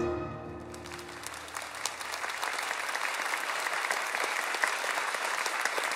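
The last chord of the music dies away, and a concert audience's applause builds about a second in and keeps going steadily.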